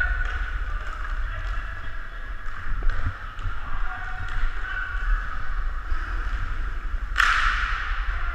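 Inline hockey game noise picked up by a camera worn by a player: a steady low rumble with rough scraping and scattered light knocks, and one sharp crack about seven seconds in.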